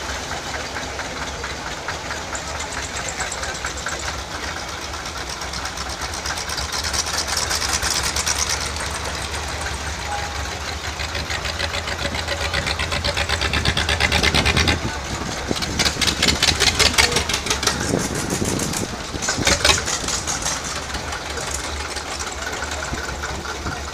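Several vintage Zetor 25 tractors' two-cylinder diesel engines running at low speed as they drive past in a line, a fast even exhaust beat. It is loudest with a strong throbbing about two-thirds of the way through, as one passes close.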